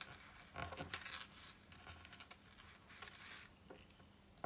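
Faint rustling with a few light, scattered clicks of a thin metal chain and a small metal locket being handled.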